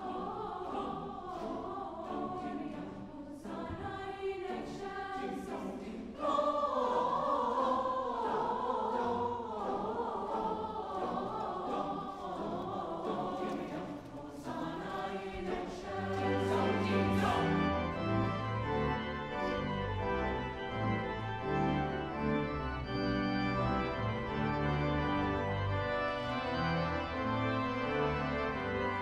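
A choir singing, then from about halfway an organ playing held chords with deep bass notes.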